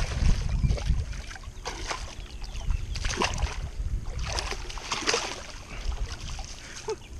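A hooked snakehead splashing at the surface and a landing net sloshing through the water, as several separate splashes over a few seconds, with wind rumbling on the microphone.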